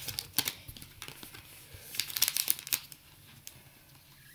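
Foil wrapper of a football trading-card pack crinkling and crackling as it is handled and pulled open, in two spells of crackle, the second about two seconds in, then quieter.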